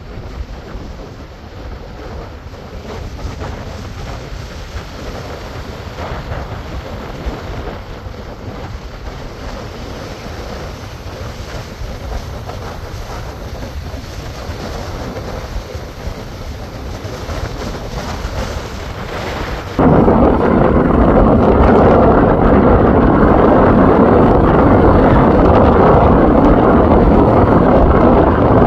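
Wind buffeting the microphone over surf washing onto a sandy beach, a steady rumbling rush. About twenty seconds in the sound jumps abruptly to a much louder, duller rush.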